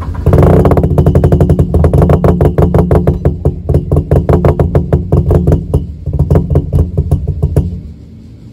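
Turbocharged Mazda RX-8's rotary engine starting from cold at the exhaust. A sudden loud start gives way to a rapid, even pulsing several times a second, with a brief dip near six seconds. The pulsing stops shortly before the end, leaving a quieter steady sound.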